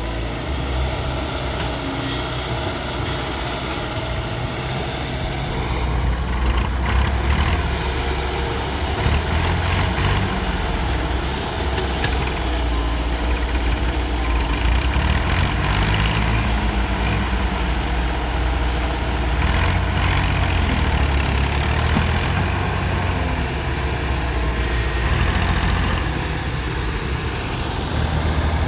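Hyundai excavator's diesel engine running under work, getting louder about six seconds in, with a few scattered knocks.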